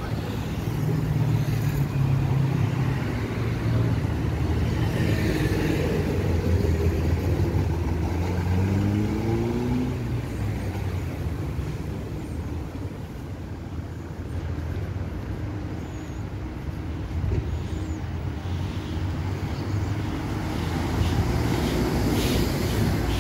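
City street traffic: car engines running and tyres on the road as vehicles pass, a steady low rumble, with one engine note rising in pitch about nine seconds in as a vehicle accelerates.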